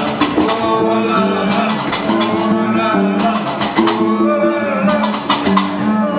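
Live Gnawa-jazz band: a man singing over repeated low plucked notes from a guembri, with drums and a rapid bright metallic clatter that starts and stops.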